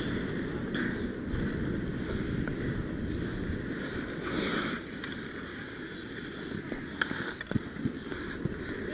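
Inline skate wheels rolling on the rink, a steady rumble, with a few sharp knocks.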